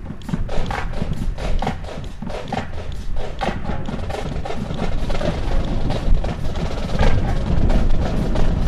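Rifles being slapped, caught and struck in an honor guard fancy drill: a quick, irregular run of sharp wooden clacks and knocks with duller thuds, over a steady low rumble.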